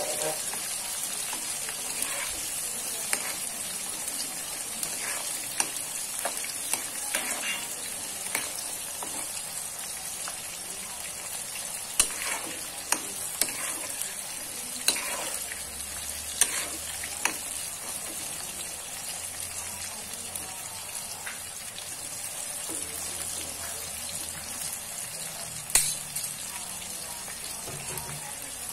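Slices of long eggplant sizzling steadily as they fry in oil in a wok, with a spatula scraping and clacking against the pan now and then. The sharpest clack comes near the end.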